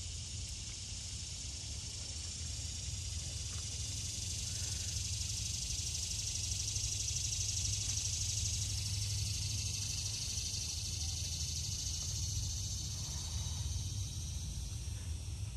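Steady outdoor ambience of a high, even hiss that swells a little midway, over a low rumble, with a few faint chirps near the end.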